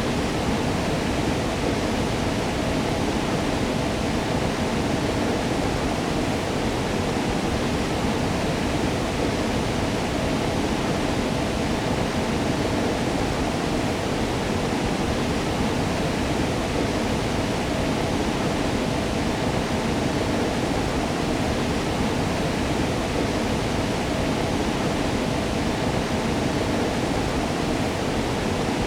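Waterfall: water falling and splashing in a steady, unbroken rush, strongest in the low middle range.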